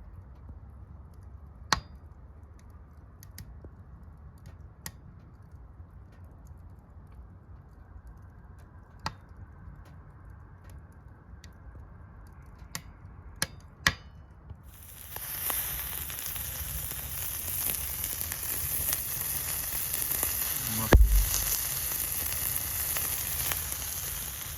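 Scattered sharp clicks and crackles, then about fifteen seconds in, food starts frying in a hot camp pot on a wood stove with a loud, steady sizzle. A dull thump sounds near the end.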